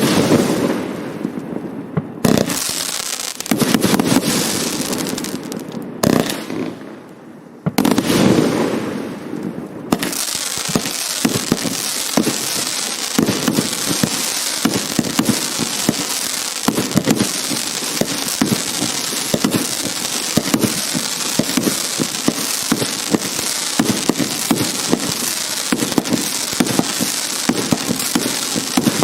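Hallmark Fireworks 'Organised Chaos' firework going off. A few separate loud bursts come in the first ten seconds, each dying away. After that it is a continuous dense crackling of rapid sharp pops.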